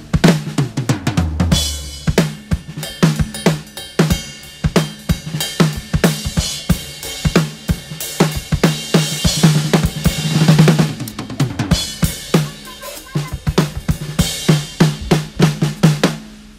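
Drum kit played hard and fast: rapid snare and tom strokes over bass drum with cymbal hits, building to a dense roll about ten seconds in.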